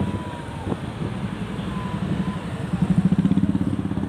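An engine running steadily with a rapid low putter, getting louder about three seconds in.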